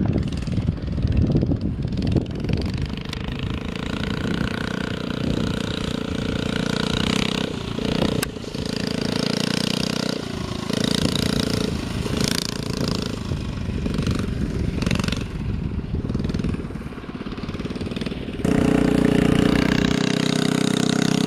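Mini bike's small single-cylinder engine running as it is ridden, its pitch rising and falling with the throttle. It gets suddenly louder near the end.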